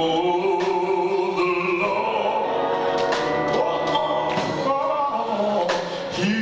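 A man singing a slow gospel song, drawing out long held notes that slide between pitches, over musical accompaniment, with a few short sharp hits.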